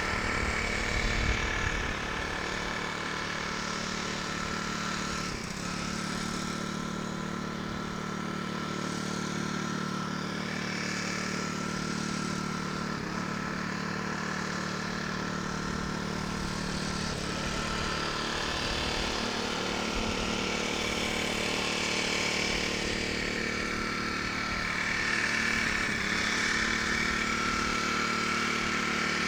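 Small fishing boat's engine running steadily with a putt-putt sound, with wind buffeting the microphone.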